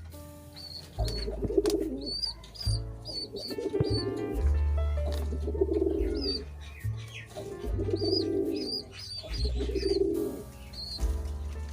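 Pigeons cooing, a low coo phrase repeating about every two seconds, with short high bird chirps in between, over background music with a deep bass line.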